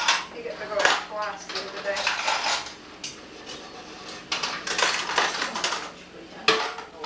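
Dishes and cutlery clattering in a kitchen sink as they are washed by hand: a steady run of clinks and knocks, with a louder clank about six and a half seconds in.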